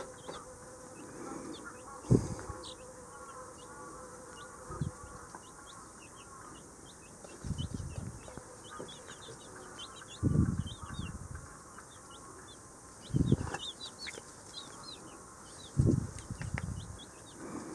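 Baby chicks peeping: a steady stream of short, high chirps, several a second, with a dull low thump every two to three seconds.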